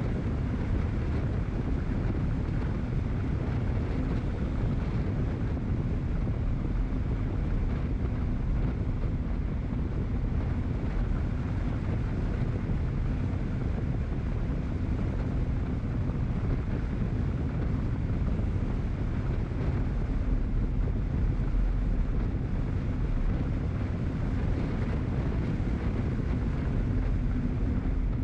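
Steady wind buffeting on the microphone of a camera moving along a street, with a low, even rumble underneath.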